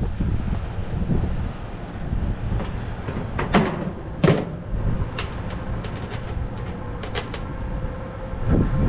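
Tools and sheet-metal panel parts being handled: several sharp clinks and knocks, a few seconds apart, over a steady low rumble.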